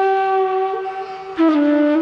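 Background music: a flute holding one long note, then moving down to a lower note about one and a half seconds in.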